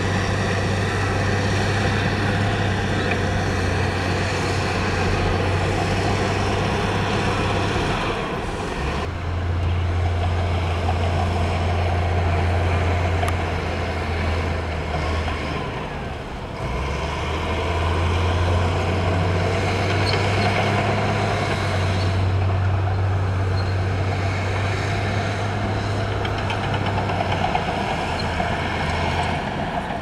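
Heavy construction machinery's diesel engine running steadily under a constant low hum, with brief drops in the engine note about eight seconds and again about sixteen seconds in.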